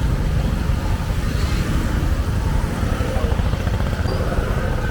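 Steady low rumble of motor vehicles and motorcycles in city traffic.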